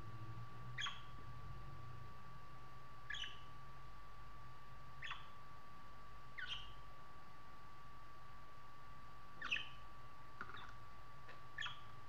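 Budgerigar giving short, sharp chirps every second or two, about seven in all, the loudest about nine and a half seconds in. A faint steady whine runs underneath.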